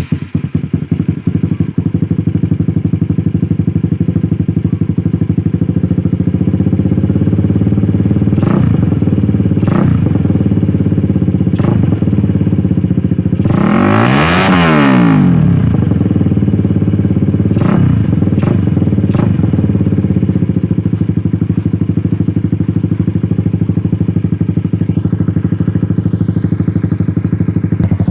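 Honda CBR150R's single-cylinder four-stroke engine breathing through an aftermarket Indonesian-made exhaust, idling with a steady pulse. Several short throttle blips, and one longer rev about halfway through, rising in pitch and then falling back to idle.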